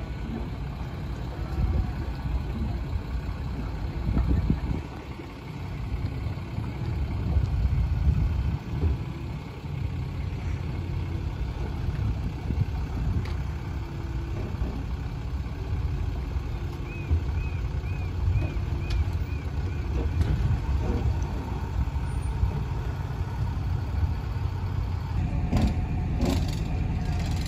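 Dodge dually pickup's Cummins straight-six turbo-diesel running at low speed as it backs a heavy boat trailer down a launch ramp, a steady low rumble that swells and eases.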